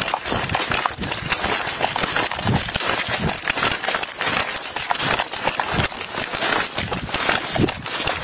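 Running boot footsteps crunching through snow, heard on a body-worn camera in a quick, uneven rhythm, with clothing rubbing against the camera and a steady hiss over it.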